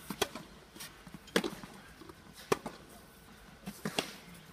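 Tennis balls being struck by rackets in a rally: four sharp pops roughly a second apart.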